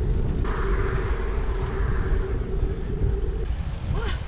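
Wind rushing over the microphone of a bike-mounted action camera while riding a Brompton folding bike on an asphalt road. Under the wind is a steady road hum that cuts off about three and a half seconds in.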